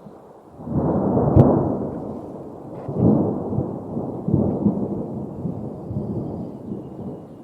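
Storm noise: a low, noisy rumble that swells and fades in several surges, with one sharp crack during the first surge.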